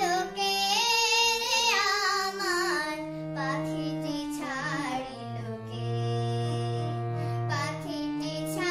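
A girl singing a melodic song while accompanying herself on a harmonium, whose reed tones hold steady under her voice. About two thirds of the way through she holds one long note over a sustained chord.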